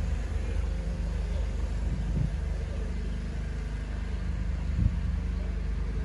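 An engine running steadily at a low idle-like pitch, a constant low rumble, with two dull thumps about two seconds in and near the end.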